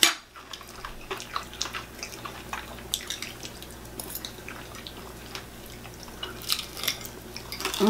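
Close-up eating sounds: scattered wet clicks and smacks of chewing, with a fork on a plate. A denser run of crunching clicks comes near the end as a piece of crispy fried chicken is bitten.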